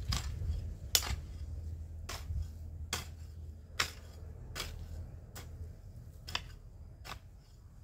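Garden hoe chopping into dry soil, a steady rhythm of sharp strokes a little faster than one a second, over a low rumble.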